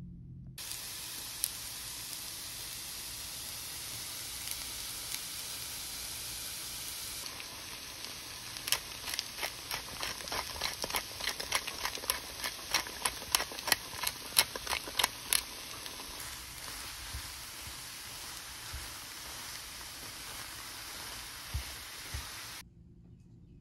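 Diced potatoes and smoked bacon sizzling in a frying pan: a steady hiss that starts and stops abruptly. For several seconds in the middle, a quick run of sharp clicks or taps is heard over the sizzle.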